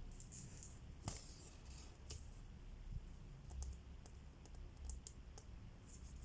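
Faint cross-stitching sounds: small clicks of the needle going through the fabric, with a few brief soft swishes of thread being drawn through. The sharpest click comes about a second in.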